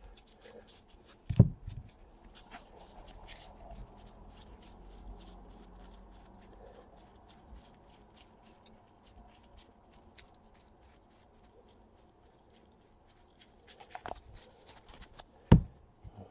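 Stack of trading cards being thumbed through one at a time: a quick run of small paper clicks and flicks as each card slides off the next. Two dull thumps, about a second in and near the end, the second as the stack is set down on the playmat.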